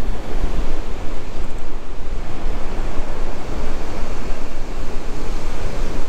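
Wind buffeting the camera's microphone over the steady wash of ocean surf breaking below a pier.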